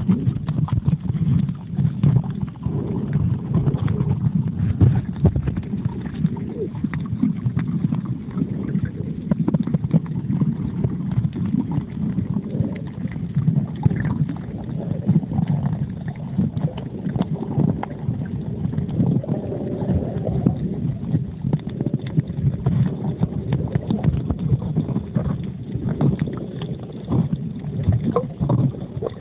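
Muffled underwater noise picked up by a smartphone sealed in a plastic waterproof pouch: water swishing and the pouch rubbing and crackling against the microphone as the swimmer moves, a continuous low rumble with irregular small knocks.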